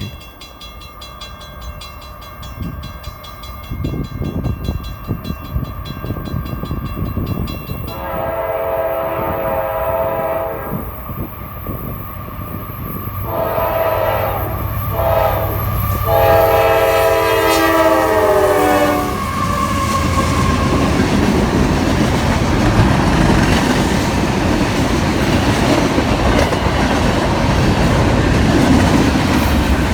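A grade-crossing bell rings, then a freight locomotive's multi-chime air horn sounds the crossing signal: a long blast, a shorter one, a brief one and a final long blast, ending about 19 seconds in. The freight train then passes close by with its wheels clacking over the rail joints.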